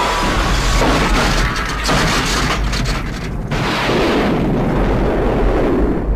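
Movie explosions from a rocket-launcher attack: several blasts in a row with heavy rumbling between them, a new blast hitting about every second or so.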